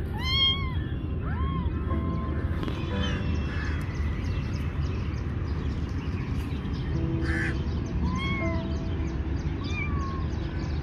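Young kitten mewing several times in short, arched calls: a loud one at the start, then more spread out near the middle and toward the end, over a steady low background noise.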